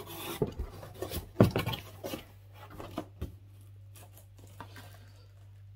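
Printer packaging being handled: rustling with a few knocks and taps in the first two seconds, the loudest a knock about a second and a half in, then only occasional light ticks, over a steady low hum.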